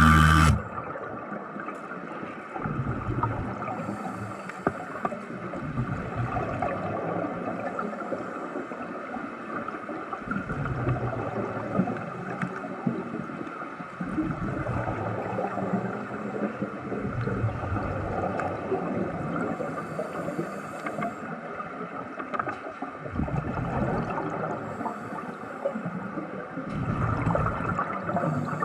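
Underwater bubbling and gurgling, with low surges that come and go every few seconds.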